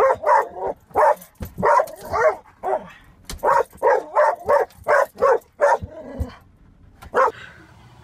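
Small dog barking in quick runs, several barks a second, at a car's moving rear windscreen wiper; the barking stops near the end.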